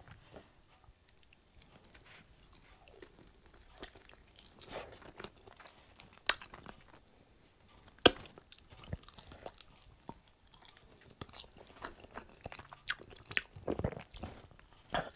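Chewing and biting into a sauce-covered chicken hot wing, with scattered crunches and clicks. The loudest is a sharp click about eight seconds in.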